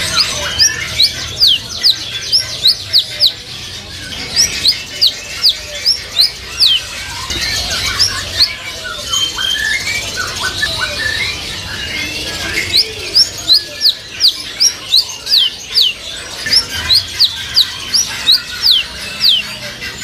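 Caged songbirds singing: one bird repeats short, high, falling whistled notes in quick runs of about three a second, pausing for a few seconds midway, while other birds chirp more quietly underneath.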